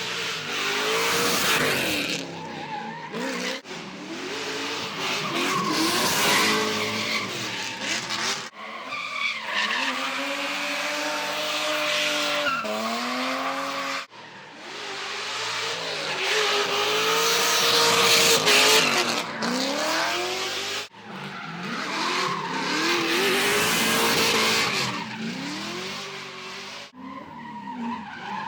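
Drift cars at full throttle, engines revving up and down through each slide while the rear tyres squeal and skid. Several short runs follow one another, each breaking off abruptly.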